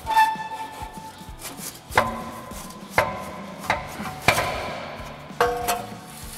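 Factory exhaust muffler and pipe knocking and clanking as it is worked off its hangers and pulled free. There are about six sharp metal knocks, each leaving a short ring.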